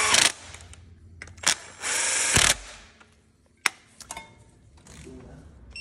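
Cordless power tool running in two short bursts as it snugs down the timing chain tensioner bolts, followed by a sharp click and a few light ticks.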